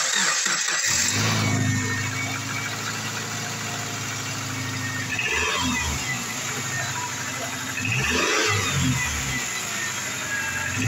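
2004 Subaru Forester's 2.5-litre flat-four engine starting, catching about a second in and then idling steadily, with two short revs, one around the middle and one near the end.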